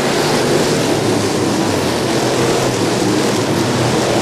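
Several dirt-track street stock race cars running at speed on the oval, a steady dense engine noise.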